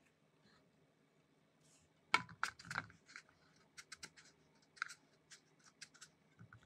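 Fingers pressing and rolling egg-coated chicken hearts in dry breadcrumbs in a plastic tub: short crunchy scratches and clicks, a dense cluster about two seconds in and more scattered ones from about four seconds on.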